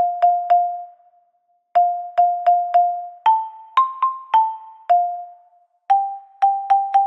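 Music: a simple melody of single struck notes in short phrases of three or four notes. Each note fades after it is struck, and the tune steps up a little in the middle and back down.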